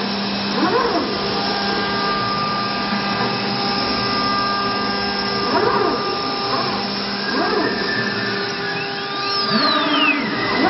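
CNC router running: a steady whine from the spindle and machine, made of several held tones over a rushing noise, with brief sweeps that rise and fall in pitch several times.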